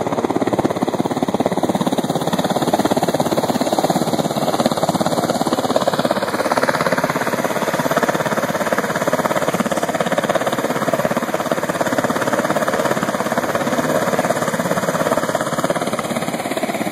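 H-60 (Black Hawk family) helicopter running on the ground: a steady, rapid rotor beat over the turbine noise.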